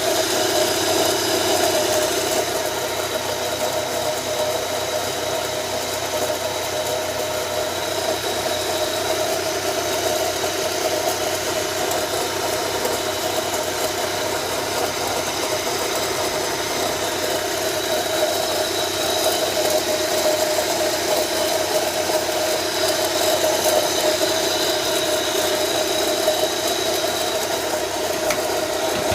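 Car engine idling steadily, with a constant whining noise over it from a failing AC compressor bearing.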